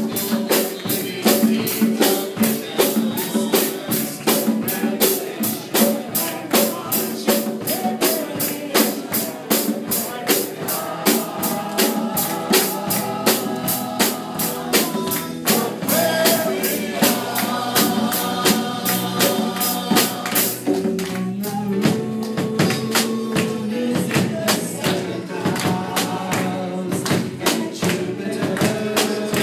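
Live band music: a drum kit, congas and electric guitar playing a quick, steady beat, with singers over it.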